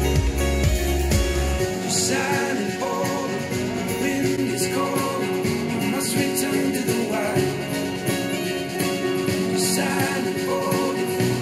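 A song with a sung vocal, played back through Mackie CR4-X and then Mackie CR5-X studio monitors and picked up by microphones in front of them. The deep bass drops away about two seconds in.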